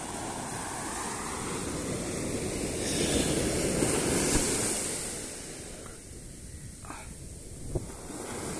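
Surf washing on a sandy beach, with wind on the microphone; the wash swells loudest about three to four seconds in and then eases, with one small click near the end.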